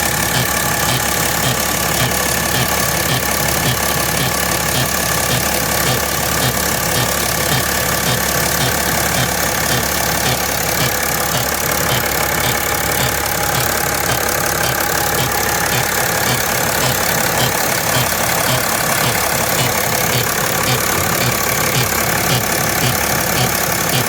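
2010 BMW E70 X5 engine idling steadily with a regular ticking, about three ticks a second: the strange engine noise the owner is asking about, cause not given.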